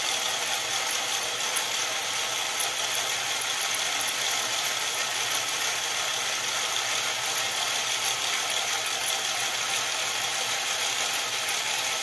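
Small electric motor and plastic gears of a Tyco US1 slot-car dump truck running on the powered track with a steady whirring rattle.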